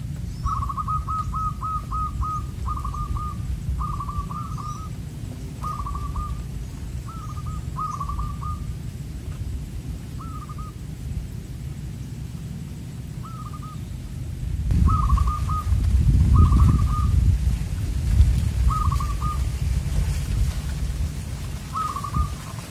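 Zebra dove (perkutut) cooing in repeated short phrases: bunched close together over the first eight seconds or so, then single phrases every two or three seconds. A low rumble runs underneath and gets louder about two-thirds of the way in.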